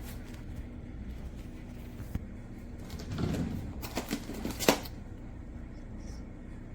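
Steady low hum with a cluster of clicks and clatter of something being handled about three to five seconds in; the sharpest click comes near the end of the cluster.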